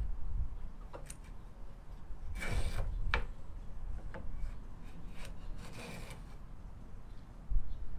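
Homemade aluminum round-over hand plane with a high-speed steel blade being pushed along a wooden board's edge in a first test cut: two short scraping strokes about three seconds apart, with a few sharp clicks between them.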